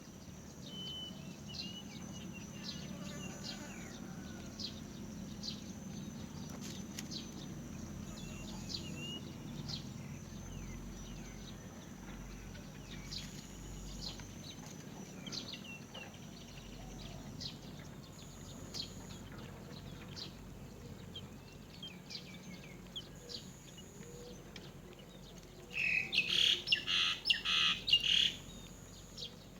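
Great myna chicks calling: scattered short, high chirps and downward-sliding peeps throughout, then a loud two-second burst of rapid, harsh calls about 26 seconds in.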